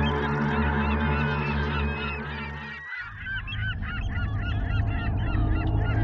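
A flock of gulls calling loudly, many overlapping short, yelping cries, thickest in the second half. Under them for the first three seconds runs a steady low hum, which cuts off abruptly.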